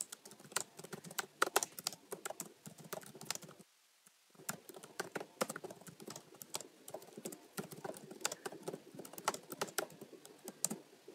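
Typing on a computer keyboard: a run of quick, irregular key clicks, with a brief pause about four seconds in.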